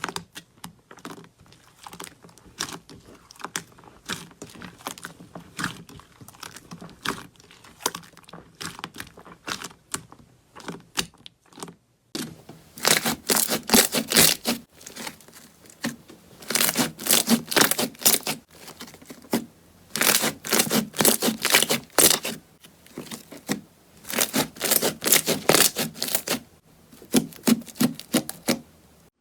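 Slime being squeezed and poked by hand, making sticky clicks and crackling pops. About twelve seconds in it gets much louder, with dense runs of crackling that come in bursts of a second or two.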